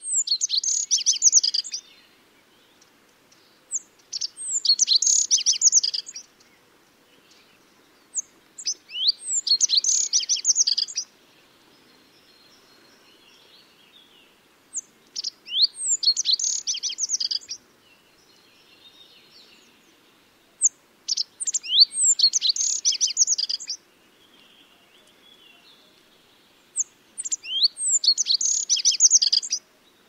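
Rock bunting singing: six short song phrases, each a quick run of high, thin notes lasting about two seconds, repeated every five to six seconds. Each phrase is led in by a few separate high notes.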